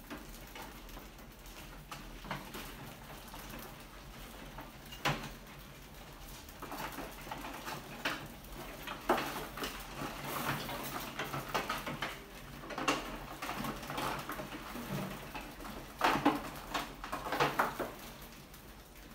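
Many rats scrabbling over a wire-mesh trap lid and inside a glass tank: irregular scratching and scuffling, with louder flurries about halfway through and again near the end.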